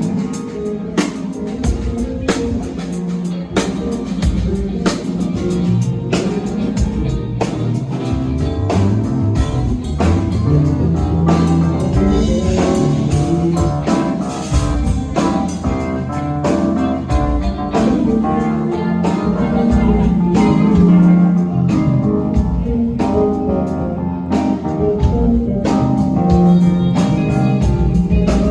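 Band playing at a sound check: guitar over a drum kit.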